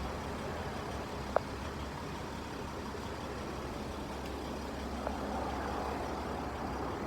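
Steady low rumble of a motor vehicle running, with one sharp click about a second and a half in.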